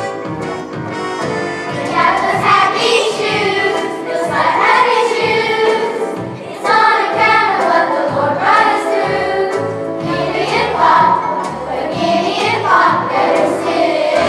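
Children's choir singing a song with instrumental accompaniment, getting louder about two seconds in.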